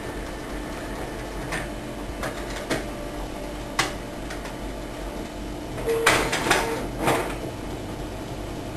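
A handful of light clicks and knocks over a steady room hum, with a short burst of clattering about six seconds in.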